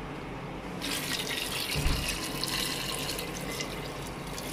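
Water running, as from a tap: a steady hiss that starts abruptly about a second in and eases off near the end, with a low thump near the two-second mark.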